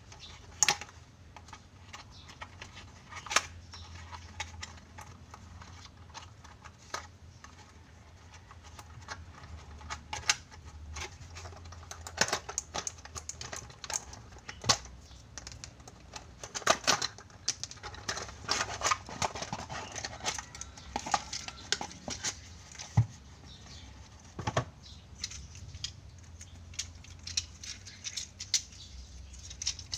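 Small hard plastic parts and packaging being handled: irregular clicks and taps with short bursts of crinkling and rustling, busiest in the middle.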